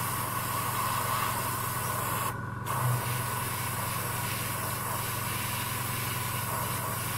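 Airbrush spraying a thin coat of gloss varnish: a steady hiss of air that cuts out briefly a little over two seconds in, then resumes. A steady low hum runs underneath.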